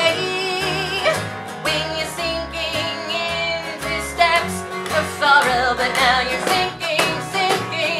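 Live acoustic folk band playing a slow instrumental passage: strummed and picked acoustic guitars over a plucked upright bass line that steps from note to note, with a wavering melody line on top.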